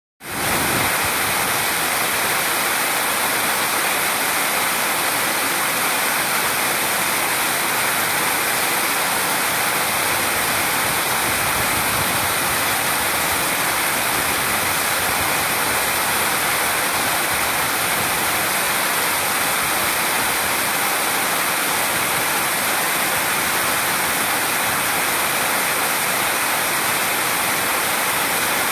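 Water spilling over a small concrete weir and churning into the channel below: a steady, even rush of falling water.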